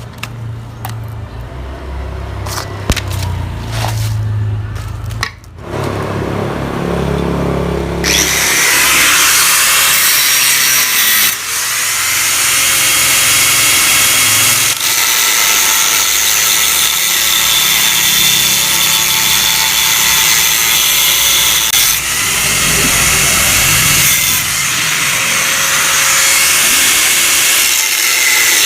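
A power tool cuts into the steel shell of a Yamaha RX-King exhaust muffler to open it up. It runs steadily and loudly from about eight seconds in. Before that there is a low hum and a few knocks.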